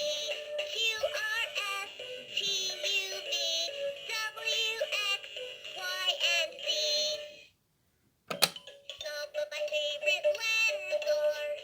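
LeapFrog Fridge Phonics toy playing its electronic sung letter song through a small speaker. About seven and a half seconds in the song stops for under a second, a sharp click follows, and the singing starts again.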